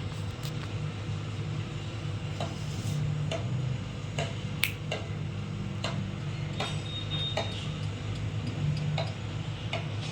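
Irregular light clicks and taps of items being handled, over a steady low hum.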